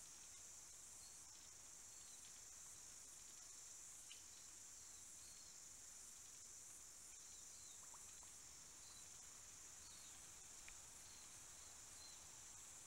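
Near silence: a faint steady high hiss, with scattered faint short high chirps and a couple of soft clicks.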